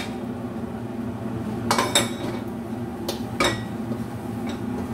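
A wooden spatula knocking and scraping against a metal wok while stir-frying, with a few sharp clacks about two seconds in and again about three and a half seconds in, over a steady low hum.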